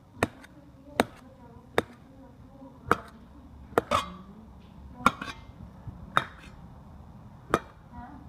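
Knife slicing a banana, each cut ending in a sharp tap of the blade on the surface beneath, about eight taps at an uneven pace of roughly one a second.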